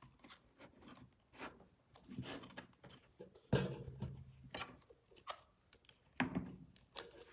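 Handling noise: a scatter of small clicks and taps, with two duller knocks at about three and a half and six seconds in, as objects are moved about and set down on a table.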